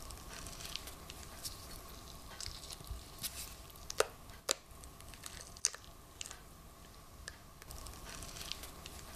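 A flexible rubber mould being flexed and peeled off a freshly cured cast of gypsum-like casting compound, with soft squishing and rubbing and a few sharp clicks, the loudest about four seconds in.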